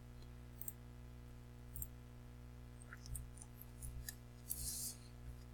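Faint computer mouse clicks, several scattered through, over a low steady hum, with a short soft hiss about four and a half seconds in.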